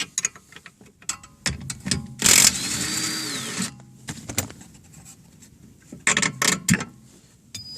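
Impact wrench running in one burst of about a second and a half, its pitch rising, holding and then dropping off, as it loosens a bolt on the rear shock absorber. Short metal clicks and clinks of the socket and tools come before and after it.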